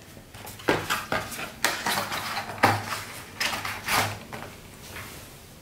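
Cardboard packaging of a Wera wooden-handled screwdriver set being closed and slid into its outer sleeve: a string of rustles and soft knocks, with the screwdrivers shifting and clinking in their tray.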